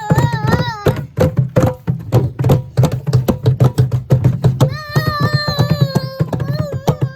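Children playing toy percussion: quick, irregular drum and block strikes in a loose beat, with a high wavering pitched tone over them at the start and again in the last couple of seconds.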